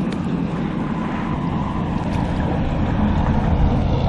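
A truck's engine and tyres rumbling as it crosses the highway bridge ahead: a low, steady rumble with a hum running through it, growing gradually louder.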